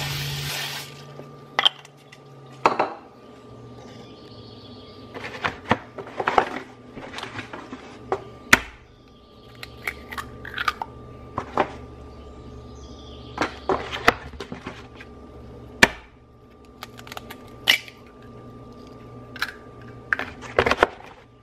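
Kitchen cooking sounds: a nonstick frying pan being handled on a glass-top electric stove, with eggs cracked into it, making a string of sharp clicks and knocks of pan and utensils over a steady faint hum.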